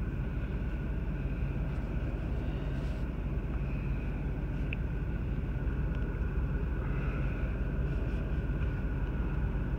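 Steady low rumble and hum inside a pickup truck's cab with the truck running.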